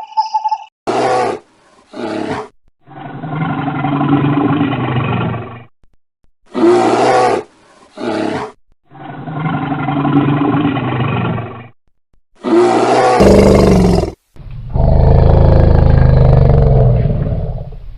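An animal calling: two short calls and then a long, low call of about three seconds, the same sequence heard three times, the last long call the loudest.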